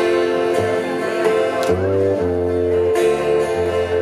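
Live band playing an instrumental intro: guitar over held chords, with low bass notes coming in about two seconds in.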